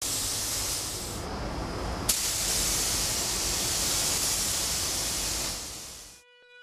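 Compressed air hissing from a gravity-feed paint spray gun as it atomises paint onto a car body. The hiss thins for a moment, comes back in full with a sharp click about two seconds in, and cuts off abruptly about six seconds in, just as a steady musical tone begins.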